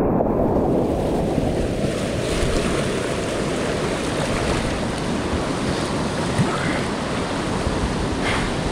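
Steady rush of whitewater from a river rapid, with wind buffeting the microphone. The sound is dull and muffled at first and opens up to a fuller hiss about two seconds in.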